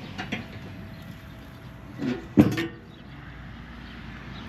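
Light clicks, then a louder metallic clatter about two seconds in, at a charcoal grill being tended, over a steady background hiss.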